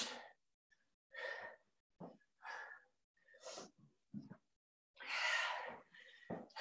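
Heavy breathing from exercise exertion: short, hard breaths about once a second, with one longer breath out about five seconds in.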